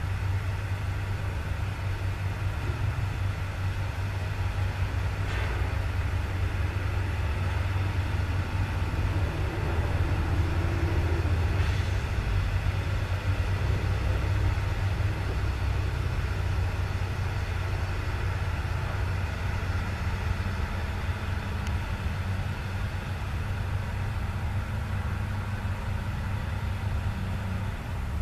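Hitachi Zaxis 200 hydraulic excavator's diesel engine running steadily, a low hum, while the machine works its boom and bucket. There are two faint knocks, about five and twelve seconds in. A steady, slightly higher tone joins about twenty seconds in.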